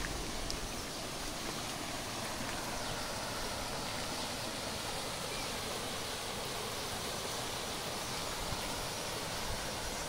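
Steady, even rush of falling water from a small waterfall pouring over rock slabs in the forest.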